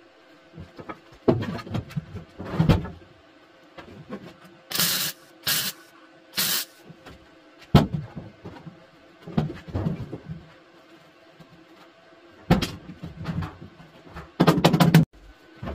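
MIG welder tacking sheet-steel repair panels into a car's floor: three short hissing spells of welding about five to seven seconds in and a quick sputtering run near the end, with clunks and knocks of handling the panels in between over a steady hum.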